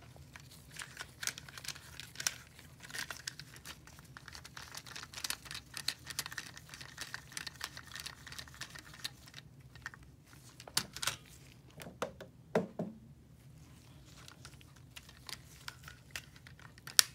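Gloved hands handling a plastic Gilson Pipetman L multichannel pipette: a steady string of small clicks, rustles and crinkles, with a few louder plastic clicks in the second half and a sharp one near the end.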